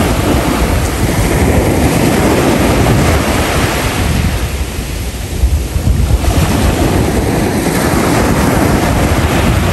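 Sea waves washing on the shore, with wind buffeting the microphone.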